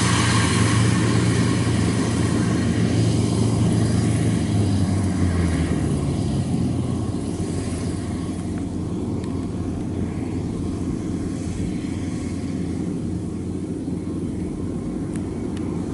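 Kubota 93 rice combine harvester running while it cuts and threshes, a steady mechanical drone of diesel engine and threshing gear. It grows fainter over the first half as the machine moves away, then holds steady.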